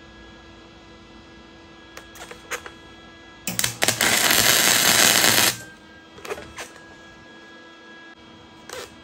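Wire-feed (MIG) welder arc crackling steadily for about two seconds as a short weld is run on a steel roller trolley, with a few short clicks before and after it. A faint steady hum sits underneath.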